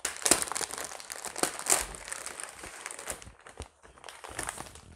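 Plastic bubble wrap crinkling and crackling as it is handled and unwrapped by hand, a busy run of irregular crackles that thins out after about three seconds.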